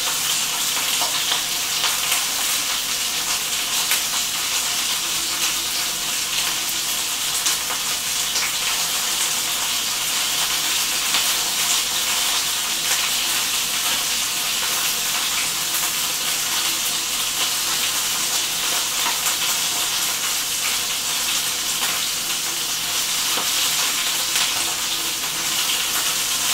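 Chicken thighs sizzling in a skillet, frying in their own rendered fat with no added oil: a steady hiss with fine crackling.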